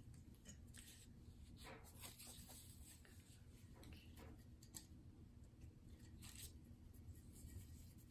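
Near silence: room tone with faint rustles and light taps from hands handling paper and craft supplies.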